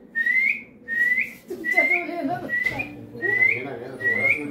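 A short, high, rising squeak repeated about once every 0.7 seconds, with faint voices underneath from about a second and a half in.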